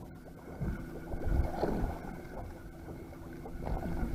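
Wind on the microphone and water sounds on a small boat at sea, over a steady hum. Low gusts rise about a second and a half in.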